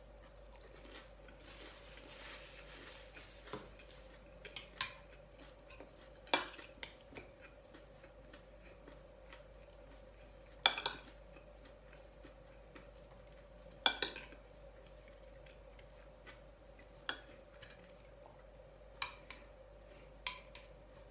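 Metal spoon clinking against a glass bowl, sharp single or double clinks every few seconds, the loudest about six, eleven and fourteen seconds in, over a steady faint hum.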